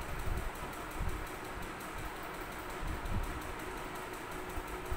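Chalk scratching against a chalkboard as a word is written out by hand, in an irregular run of short strokes.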